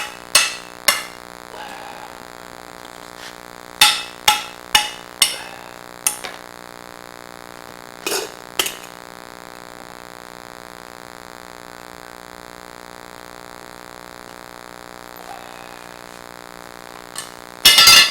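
Sharp metallic clinks and knocks in quick groups of three to five strikes, a few seconds apart, over a steady whining hum made of many fixed tones, the camera's faulty audio noise.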